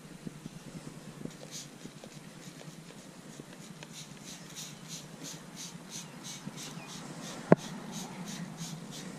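Hand trigger spray bottle being pumped over a bare steel motorcycle fender: a quick run of short misting hisses, about three a second. A single sharp click comes a little past seven seconds.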